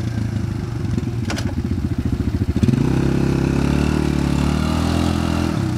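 Quad-bike ATV engine running in deep muddy water: a low, fast, even beat at first, then from about two and a half seconds in its revs rise and fall as the rider tries to drive through.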